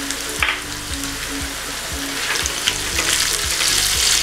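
Diced potatoes, onion and green chillies frying in hot oil in a wok: a steady sizzle that grows louder about three seconds in, with occasional clicks as the pieces are stirred. Background music with a steady beat runs underneath.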